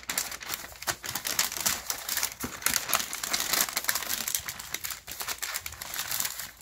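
Waxed butcher paper crinkling and rustling in dense, rapid crackles as sheets are folded and tucked tightly around a roast.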